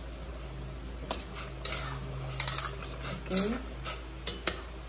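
A metal utensil clinking and scraping against a stainless-steel cooking pot: a sharp clink about a second in, a couple of quick clinks with scraping in the middle, and two more clinks near the end.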